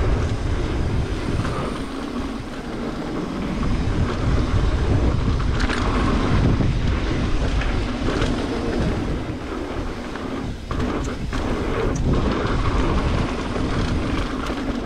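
Wind buffeting the microphone over the rumble of a mountain bike rolling down a dry dirt trail, with a few sharp knocks from the bike about halfway through and again past two-thirds of the way.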